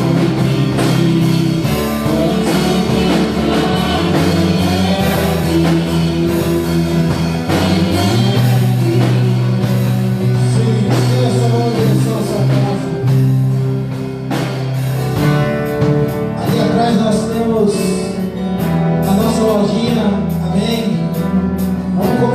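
Slow church worship music with sustained chords, guitar and a singing voice.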